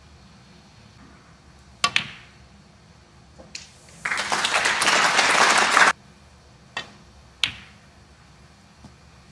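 Snooker balls clicking: a cue strike and the cue ball hitting a red about two seconds in. Audience applause follows for about two seconds after the red is potted. Near the end comes another cue strike and a sharp click of the cue ball on the black.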